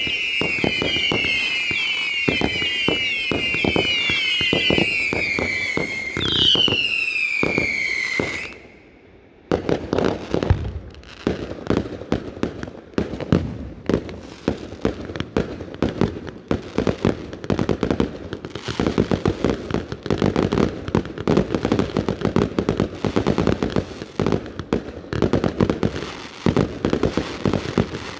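Professional fireworks display: many overlapping whistles, each falling in pitch, among bangs for about eight seconds, then a brief lull. After that a dense run of rapid bangs and crackling continues.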